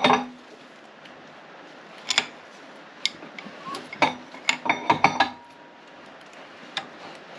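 Metal tools clinking and knocking against engine parts while the engine is worked by hand to check its timing marks: a few scattered sharp clinks, with a quick flurry about four to five seconds in.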